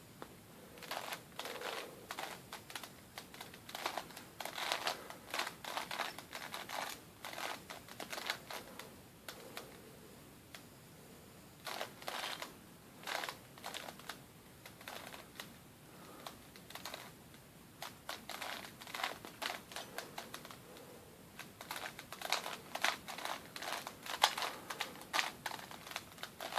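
Plastic Rubik's Cube being twisted by hand: runs of quick clicking and clacking as the layers turn, broken by short pauses while the solver works out the top layer.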